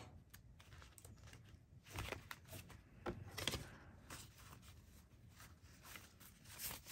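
Faint rustling and crinkling of paper banknotes as a stack of dollar bills is handled and fanned out, a few soft crinkles about two and three seconds in, and a sharp tap at the very end.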